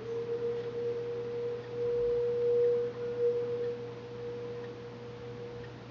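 A steady, pure sustained tone of meditation-style background audio, holding one pitch over a low steady hum, swelling a little about two seconds in and easing off toward the end.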